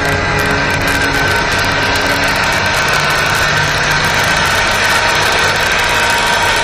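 All-steel RC model crawler tractor driving under load: its drive motor and gearbox give a steady whine over a low hum, with a fast patter of clicks from the steel tracks.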